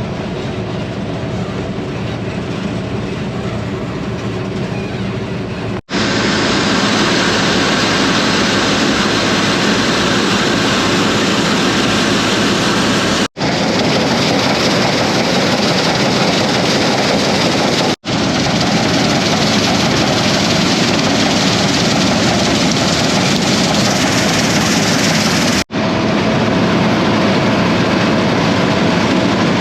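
Combine harvester running steadily while cutting beans: a loud, even machine noise. It breaks off four times for an instant, where separate clips are joined.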